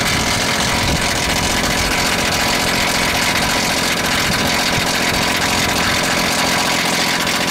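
Heat pump outdoor unit running in heat mode, very noisy: its fan blade is hitting ice that has built up from water dripping onto the unit, with a steady, dense clatter.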